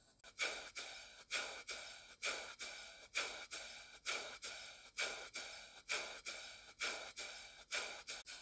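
Model stationary steam engine running, its exhaust puffing in an even rhythm: pairs of sharp puffs a little under a second apart, about two puffs a second.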